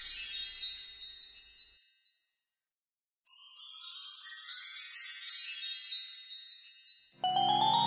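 Magic-wand sparkle sound effect: a shimmer of high tinkling chimes that fades out, a second of silence, then a second twinkling run rising in pitch. Near the end a bright melody on glockenspiel-like notes comes in.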